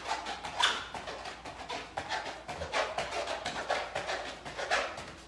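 Quick, regular scuffs and taps of feet on an exercise mat during mountain climbers, about three a second.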